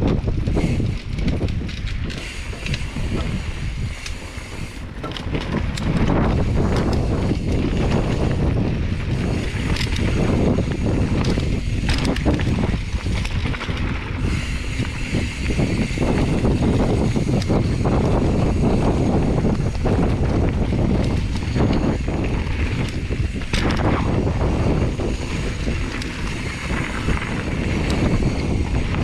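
Mountain bike rolling fast down a dirt trail: tyres running over packed dirt, and the bike rattling and knocking over bumps, with wind rumbling on the microphone.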